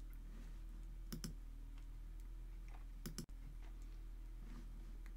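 Computer mouse clicking: two quick double clicks, about a second in and about three seconds in, over a steady low electrical hum.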